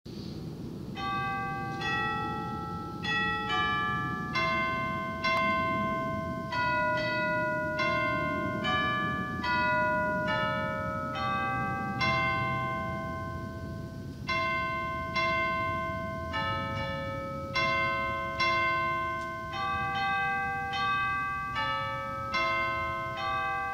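Instrumental opening music: a slow melody of struck, ringing notes, each sounding sharply and then fading, about one or two a second, over a low steady background.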